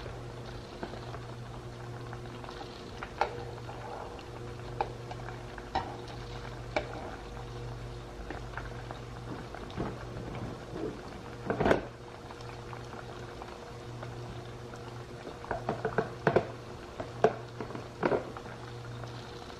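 Vegetable lumpia (egg rolls) frying in hot oil, the oil bubbling steadily under a low steady hum. Scattered sharp clicks and knocks come through it, the loudest about twelve seconds in and a cluster of them near the end.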